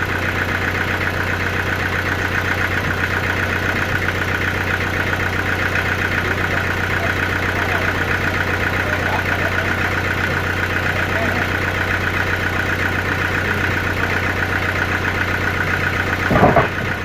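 Sawmill machinery running steadily: a constant low hum with a fast, even buzz over it. A short loud knock comes near the end.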